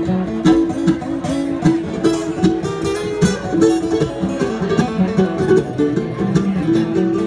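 Mandolin and acoustic guitar playing a bluegrass tune together, picked and strummed, in an instrumental break without singing.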